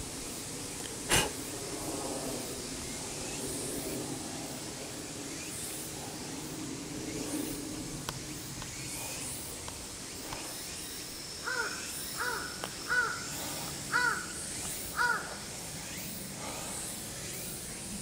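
A crow cawing about six times in quick succession in the second half, each caw a short hoarse note; the uploader takes this cawing for a crow's earthquake-warning call. A sharp click about a second in is the loudest sound, over a steady background hiss.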